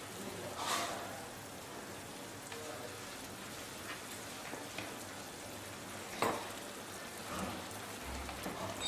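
Chicken thighs simmering in red curry and coconut sauce in a pan, a steady bubbling sizzle with a couple of sharp clicks, the loudest about six seconds in.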